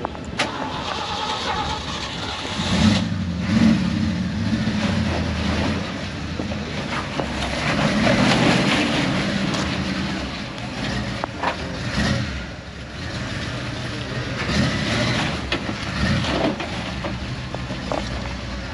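Off-road truck engine running at low speed and revving unevenly as it crawls a rocky trail, with a few sharp knocks, one about half a second in and another about twelve seconds in.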